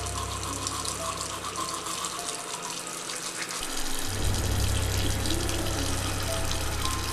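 Bathroom sink tap running, water splashing steadily into the basin, a little louder from about four seconds in.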